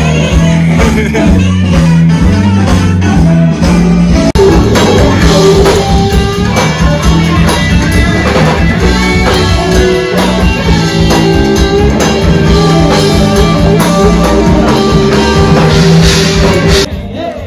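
A live rock band playing on an outdoor stage: drum kit, guitar and singing, heard from among the audience. The level drops suddenly near the end.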